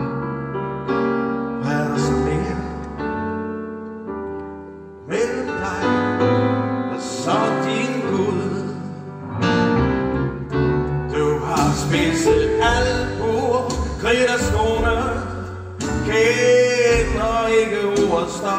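Live band music with piano, and a male voice singing in places.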